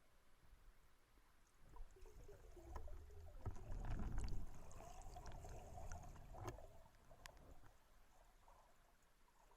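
Water sloshing and gurgling close to the microphone, with scattered clicks, swelling for a few seconds and then fading.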